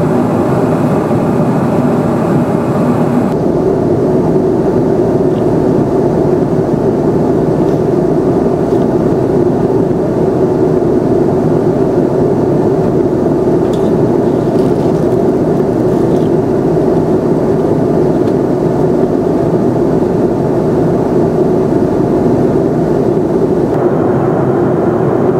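Boeing 747-400 cabin noise in cruise: a steady, even rush of airflow and engine noise heard from a window seat. Its hiss changes abruptly about three seconds in and again near the end where the recording is cut.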